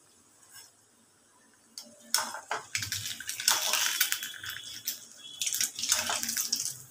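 Deep-frying semolina sweets sizzling in hot oil in a metal karahi, with a metal slotted spoon scraping and clinking against the pan as the browned pieces are turned and lifted out. Quiet at first, then loud from about two seconds in.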